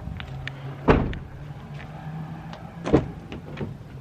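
Two sharp knocks about two seconds apart, with lighter clicks between them, over a low steady hum.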